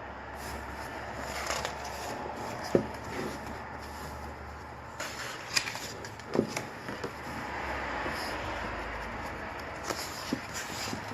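Merchandise packaging being handled and rustled, with a few light taps and clicks.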